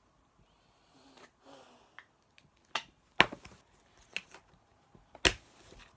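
Slime being handled and squeezed, giving a few sharp pops and clicks, the loudest about three and five seconds in.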